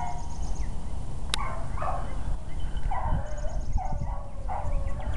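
Beagle hound baying on a rabbit's scent trail: about five short bays, roughly a second apart.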